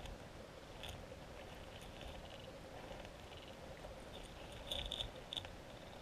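Faint underwater river ambience picked up by a submerged GoPro: a steady low hum with short trains of rapid, high buzzing clicks that come and go, and a louder cluster of sharp clicks about five seconds in.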